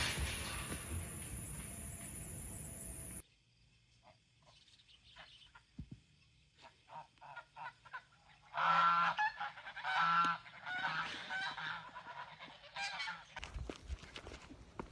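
Geese honking, a run of calls that is loudest in two honks about nine and ten seconds in. Before them, a steady hiss cuts off suddenly about three seconds in, followed by a few faint clicks.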